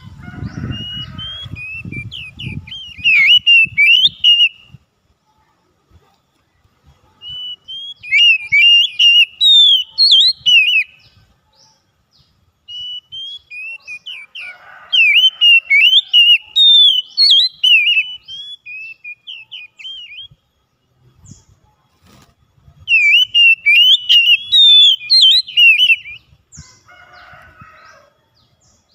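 Oriental magpie-robin (kacer) singing in four bursts of rapid, varied whistled phrases, with pauses of a few seconds between them.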